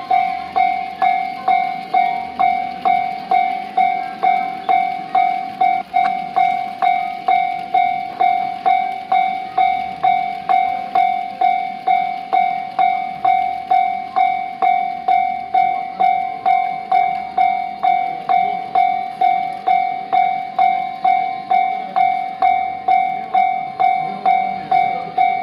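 Japanese level-crossing warning bell ringing steadily at about two strikes a second, with the irregular clicking of an N-gauge model freight train's wheels running over the track.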